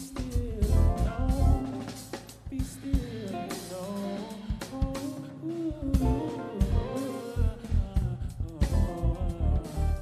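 Live band playing: a singer's voice over guitar and a drum kit, with a heavy low end.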